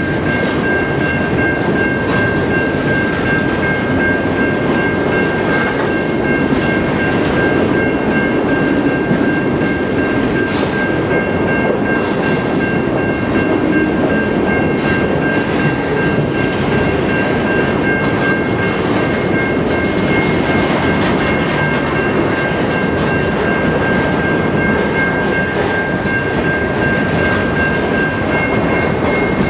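Freight train of covered hopper cars rolling past at close range: a steady rumble of steel wheels on the rail, with a steady high-pitched whine above it.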